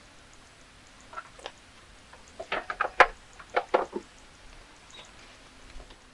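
Hands working on parts in a car's open engine bay: irregular light clicks and knocks, a couple about a second in and a tight cluster from about two and a half to four seconds in.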